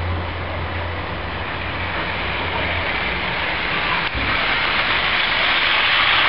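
00 gauge model train running along garden track: the rumble of its wheels and motors grows louder as it comes close. A low hum fades out about three seconds in.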